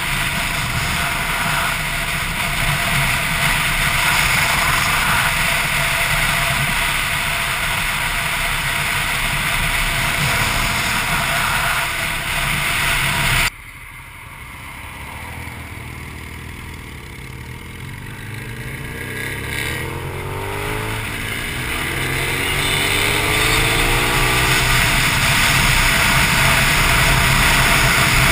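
Motorcycles on the move: steady engine and wind rush at road speed, then after a cut about halfway in, a quieter stretch in which engine pitch rises several times as the motorcycles accelerate up through the gears, growing louder toward the end.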